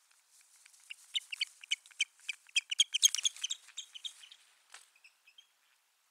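Osprey giving a rapid series of sharp, high chirping calls that build to a peak about halfway and then fade out. These are alarm calls typical of an osprey warning off a territorial intruder.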